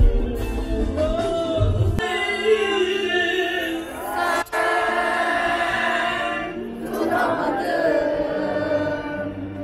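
Live pop concert heard from inside the audience: a singer over loud amplified music, with many voices in the crowd singing along. The deep bass drops away about two seconds in, and the sound cuts out for a moment midway.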